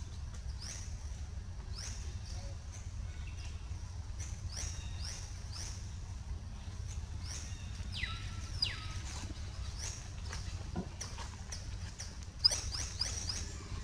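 Short, high chirping calls that slide downward, repeating about once or twice a second, with a quick run of them and a sharp tap near the end, over a steady low rumble.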